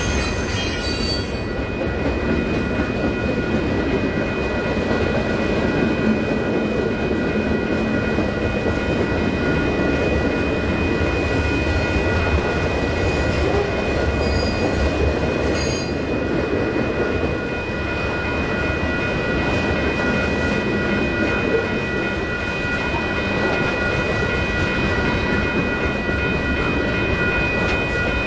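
Freight cars of a mixed freight train rolling past: a continuous, steady rumble of wheels on rail. A steady high-pitched tone rings over it throughout.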